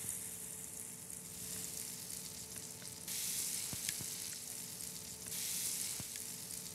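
Batter-coated mushroom pieces sizzling in hot oil as tempura deep-fries: a steady crackling hiss that grows louder about three seconds in, with a few faint clicks.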